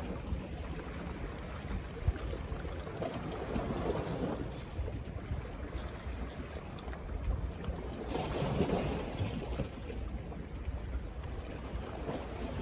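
Wind buffeting the microphone over sea waves washing against shoreline rocks, with louder swells of surge about three seconds in and again near the end.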